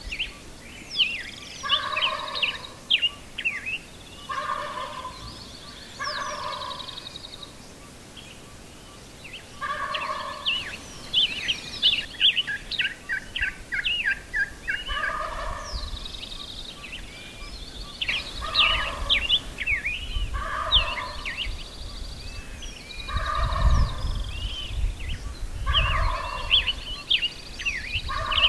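Gould's wild turkeys gobbling over and over, a gobble every second or two, some overlapping as several toms answer one another. A low rumble joins in about three-quarters of the way through.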